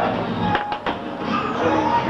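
Background music with a murmur of voices, and three quick sharp taps about half a second in.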